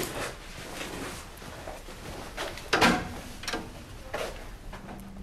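Footsteps and a few scattered knocks and bumps of furniture in a small room, the loudest about three seconds in.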